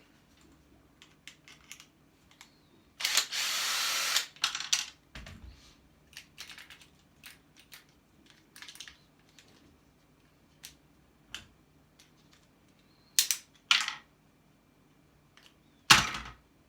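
Scattered clicks and knocks of hand tools and metal scrap parts being handled during dismantling, with one longer noise lasting about a second about three seconds in and a few louder knocks near the end.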